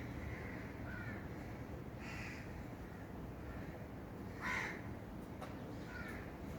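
Birds calling outdoors: a crow caws once, loudly, about four and a half seconds in, among a few shorter calls of other birds, over a steady low background noise.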